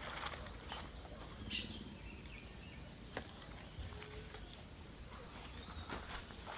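A loud, very high-pitched insect buzz that swells in about two seconds in, holds steady, and fades near the end, over a steady, thinner high insect trill.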